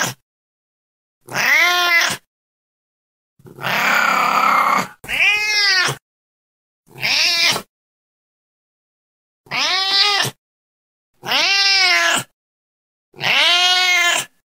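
Domestic cat meowing over and over: about seven separate meows, each rising then falling in pitch, with silent gaps between. The meow about four seconds in is rougher and harsher than the rest.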